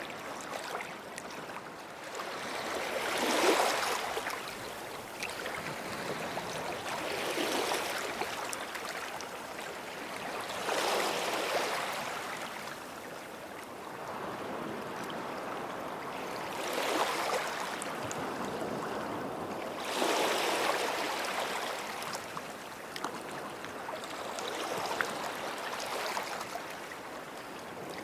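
Small sea waves washing up on a sandy shore, each breaking with a soft rush every few seconds over a constant wash of water.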